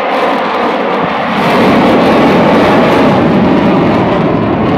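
Jet noise from the Black Eagles' KAI T-50B jets flying overhead during their display: a loud, rushing sound that swells about a second and a half in.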